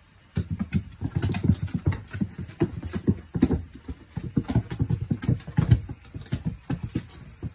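A heavy house cat's paws thudding and claws clicking on a hard plank floor as it pounces and scrambles, in quick, irregular knocks several times a second, dying away near the end.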